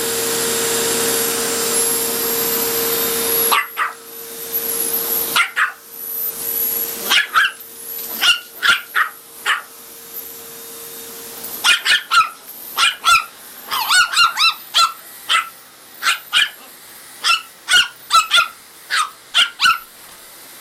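A vacuum cleaner running, switched off abruptly a few seconds in. Then a dog barks repeatedly in quick runs of short, sharp barks, thickest in the second half, reacting to the vacuum cleaner that it dislikes.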